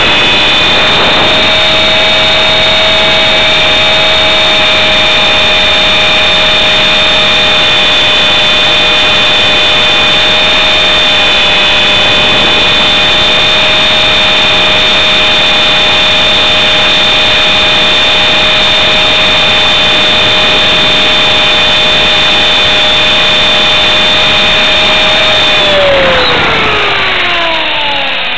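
Blade 400 electric RC helicopter's motor and rotor, recorded by a camera mounted on the helicopter: a loud, steady whine at constant head speed. Near the end the whine falls steeply in pitch as the rotor spools down.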